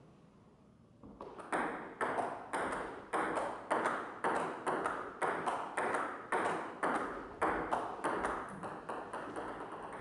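A steady series of sharp pinging strikes, about two a second, each ringing out briefly, starting about a second in.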